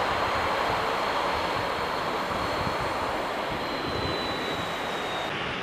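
Jet airliner engine noise: a steady rushing sound that slowly grows quieter, with a thin high whine that drifts slightly lower in the second half. The high part of the noise cuts off suddenly near the end.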